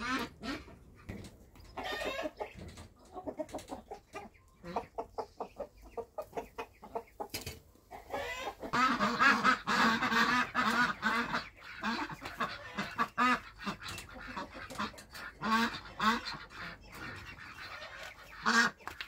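Domestic hens clucking now and then and pecking at a watermelon, with short sharp taps. From about eight seconds in, a louder, busy chorus of farmyard fowl calling, chickens along with geese and ducks.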